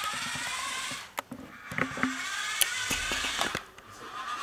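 Toy car's small electric drive motors and plastic gears whirring, driven by an Arduino motor shield. They run in short spurts that cut out briefly about a second in and again around three seconds in, with a few sharp clicks as the car starts and stops.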